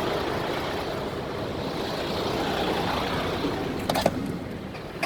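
MAN TGX truck diesel engine running, a dense steady rumble, during an injector check on an engine that knocks and smokes heavily. The rumble eases a little toward the end, with a couple of short sharp clicks about four seconds in.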